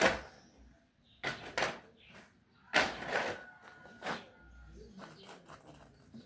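A few sharp knocks and scrapes, the longest about three seconds in, leaving a brief faint metallic ring.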